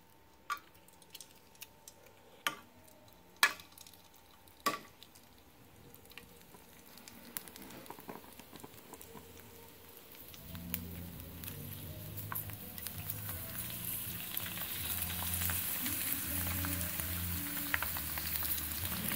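Raw five-colour vegetable prawn crackers going into hot oil in a frying pan. There are a few sharp clicks early on, then the oil sizzles, rising steadily and turning loud and crackly as the crackers puff up.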